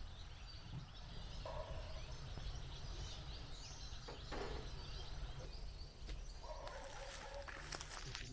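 A bird calls twice with a rattling call about a second long, the second near the end, over small birds chirping and a steady low rumble.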